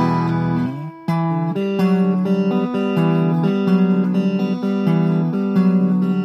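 Chinese replica Fender Stratocaster, ash body, maple neck and single-coil pickups, played on a clean tone: picked notes and chords, with a short break about a second in.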